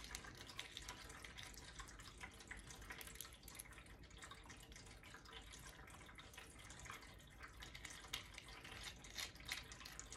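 Faint, irregular small clicks and scrapes of brass lamp-socket hardware being screwed together by hand.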